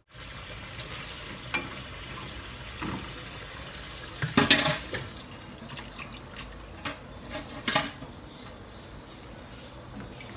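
Sliced vegetables frying in a nonstick pan with a steady sizzle, while a wooden spatula stirs and knocks against the pan a few times, loudest about four and a half seconds in.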